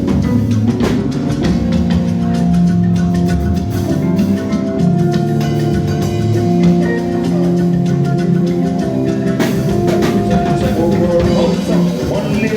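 Live band playing instrumental music: long held chords over a bass line, with drum hits.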